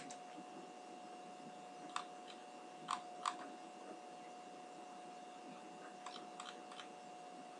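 Computer mouse clicks: a single click at the start, another about two seconds in, a quick pair near three seconds and a short cluster around six seconds, over a faint steady electrical hum.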